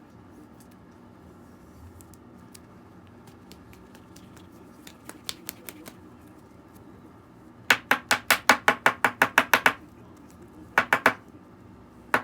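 Stiff chrome trading cards flipped one by one off a stack in the hands, each card giving a sharp click. A few soft clicks come first, then a fast run of about a dozen at roughly seven a second, then a short run of three or four near the end.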